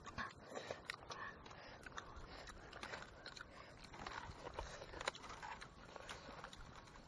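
Faint scattered clicks and rustling of people eating with their hands: picking the flesh off grilled fish over a mat of dry leaves, and chewing.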